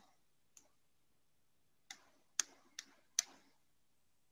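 About five faint, sharp clicks spaced irregularly over a few seconds, made while handwriting Arabic letters onto the screen with a digital pen tool.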